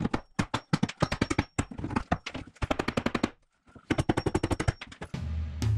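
Claw hammer striking wood in quick runs of sharp blows, about five a second, with two short pauses. Music with a drum beat comes in near the end.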